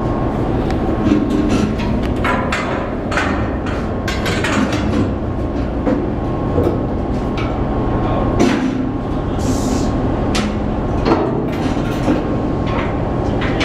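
Steady loud rumble and rush of a container ship under way, heard at an open pilot door, with irregular metallic knocks and clanks from crew handling the pilot ladder fittings.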